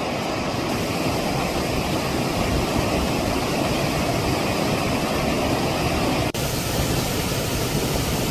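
Water falling over a small drop in a mountain stream, a steady rushing noise. About six seconds in the sound breaks off for an instant and resumes brighter, as another stretch of falling water.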